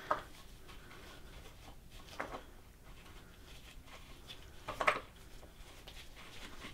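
Quiet room tone with a few faint, brief handling sounds, the loudest about five seconds in, as a Teflon-taped brass adapter fitting is turned by hand into the Aqua-Pure whole-house filter head.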